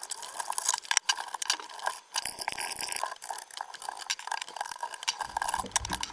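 Rapid metallic clinks, clicks and rattles of parts being pulled out of an old desktop PC case during disassembly.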